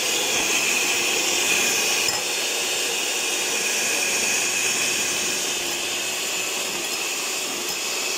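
Electric hand mixer running steadily with a high whine, its twin wire beaters whipping cream in a glass bowl.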